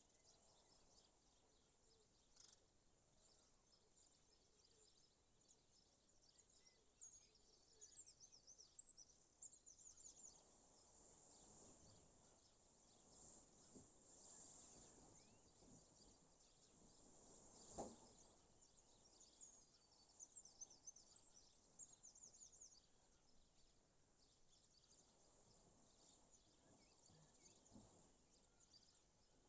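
Faint birdsong outdoors: clusters of short, high chirps over a quiet natural background hiss, with a single sharp tick more than halfway through.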